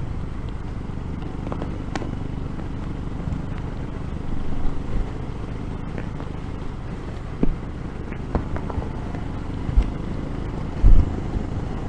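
Royal Enfield Himalayan's single-cylinder engine running steadily on the move, with road and wind noise and a few low thumps of wind buffeting near the end.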